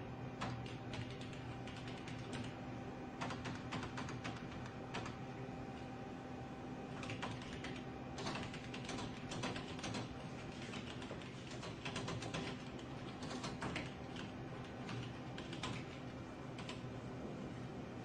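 Typing on a computer keyboard in uneven bursts of rapid key clicks with short pauses between, over a steady low hum.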